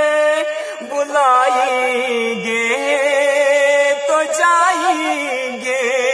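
A man singing an Urdu naat, a devotional song in praise of the Prophet, drawing out long wavering notes between the lines without a break.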